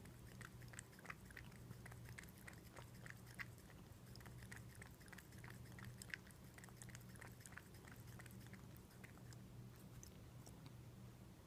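American Shorthair cat lapping water from a ceramic bowl: faint, quick wet clicks of the tongue, about three or four a second, thinning out in the last few seconds as it stops drinking.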